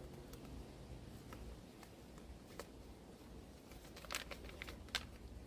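Faint rustling and scattered small clicks of hands sowing lettuce seeds from a paper seed packet into a shallow soil row, with a short cluster of crackles about four seconds in, over a low steady rumble.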